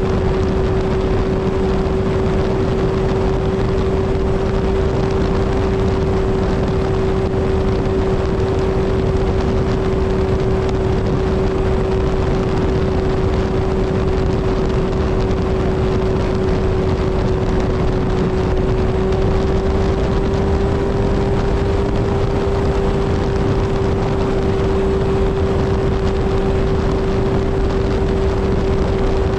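Kawasaki Z1000 inline-four motorcycle engine running at a steady highway cruise, one even engine note holding nearly constant and rising slightly about two-thirds of the way through, over a steady rushing noise.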